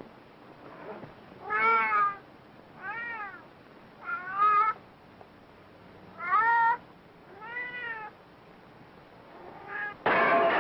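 Domestic cat meowing, about six separate meows, each rising and then falling in pitch, some loud and some softer. Near the end comes a loud, harsh burst of noise.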